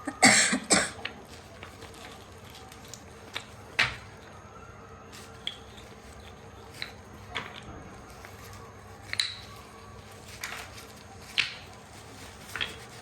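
Packaging being handled: a burst of rustling and crinkling in the first second, then scattered single crinkles and taps every second or two.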